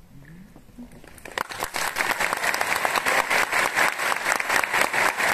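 Audience applauding. The clapping starts about a second in, swells quickly, then holds as steady applause.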